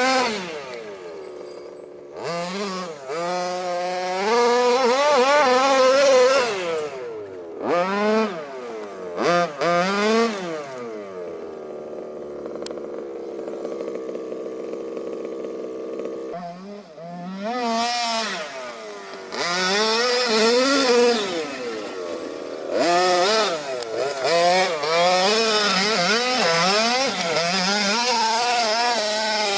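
HPI Baja 5T RC car's 26cc two-stroke gasoline engine with a Jet-Pro pipe, revving up and down in repeated throttle bursts as the car drives. In the middle it settles to a steady idle for a few seconds, then revs hard again.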